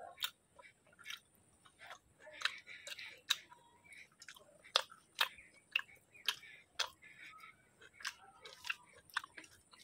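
Close-miked chewing with sharp, wet mouth clicks and smacks coming irregularly, a person eating rice and curry.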